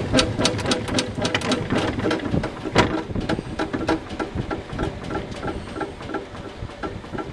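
Centrifugal honey extractor spinning its frame basket inside a stainless steel drum: a rhythmic mechanical clicking that gradually slows, with one louder knock about three seconds in.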